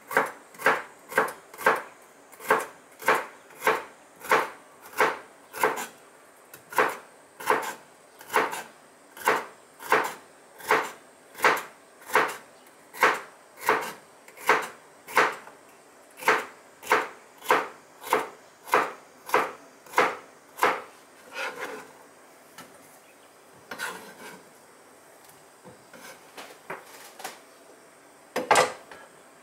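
Kitchen knife slicing bitter melon on a plastic cutting board, in steady chopping strokes about two a second. The strokes thin out after about twenty seconds, with a louder knock near the end.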